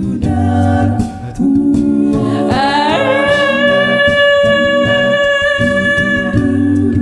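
A cappella group singing a wordless passage: a vocal bass line and vocal percussion under a voice that slides up about three seconds in and holds one long high note.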